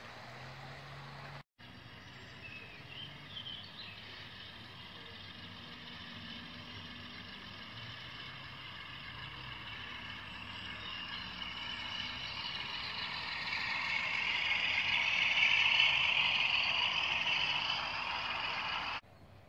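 Electric model train running along the track toward the microphone: a hiss of wheels on rail with a faint motor whine, growing steadily louder to a peak near the end, then cutting off abruptly.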